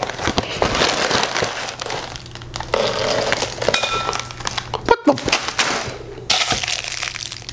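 Cardboard cereal box being torn open and its plastic inner bag of cereal pulled out, with loud crinkling and rustling of plastic and cardboard and a sharp click about five seconds in.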